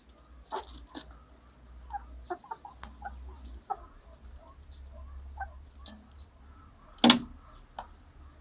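Young chickens clucking softly in short, scattered calls, with a few sharp clicks. One loud sharp knock about seven seconds in stands out above the rest.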